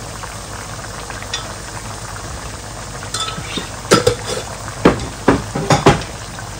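Beef sizzling steadily in a hot pan, with a cluster of sharp clinks and knocks of kitchen containers and utensils during the last couple of seconds.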